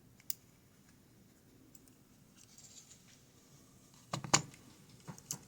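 Small clicks and taps of a pin-tumbler lock being taken apart by hand. The sharpest knocks come in a cluster about four seconds in.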